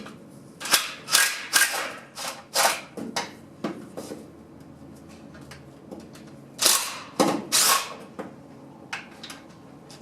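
Impact wrench with a long extension and 15mm socket hammering in short bursts as it spins out the transmission mounting bolts, which come out easily. There are about seven quick bursts in the first four seconds, then three more about seven seconds in.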